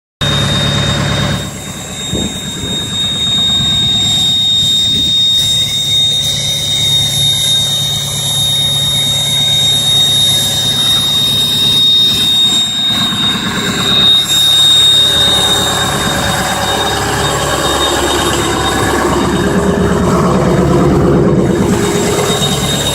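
2003 Ford 6.0 Power Stroke V8 turbodiesel running, its turbocharger whistling in a steady high tone over the engine's low rumble.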